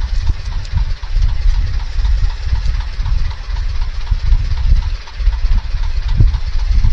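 Fishing boat's engine running steadily, with an even, rapid ticking over a heavy low rumble.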